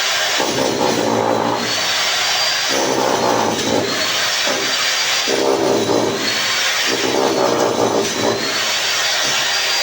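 A power tool running continuously, with a faint high whine and a lower note that comes and goes every second or so.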